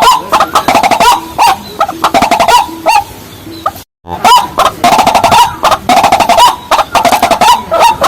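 Rapid, loud run of repeated clucking and chirping calls of rails, white-breasted waterhen type, broken by a short silent gap about four seconds in.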